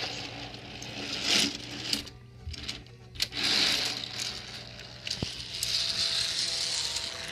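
Plastic toy trains and track being handled, with light clicks and rattling and several surges of rustling.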